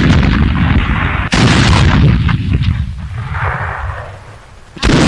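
Artillery firing: a shot is already rumbling away at the start, a second comes about a second in and a third near the end, each a sudden heavy blast followed by a long, low rumbling after-roll.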